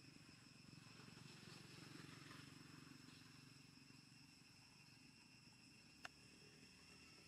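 Near silence: faint background with a steady high-pitched hum and a low murmur that swells slightly in the first few seconds, and a single sharp click about six seconds in.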